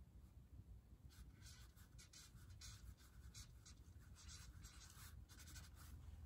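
Marker writing a word and underlining it: faint, quick strokes, many in a row, starting about a second in and ending shortly before the end.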